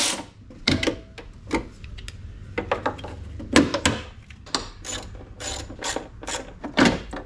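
Hand ratchet clicking in short irregular runs as it loosens the tail light's 10 mm and 8 mm fasteners, mixed with sharper clicks and knocks of parts being handled.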